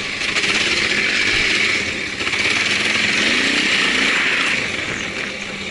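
Single-cylinder Honda 650 enduro motorcycle running under way off-road, heard from the rider's own bike-mounted microphone as a steady engine and wind rush. It eases off slightly about five seconds in.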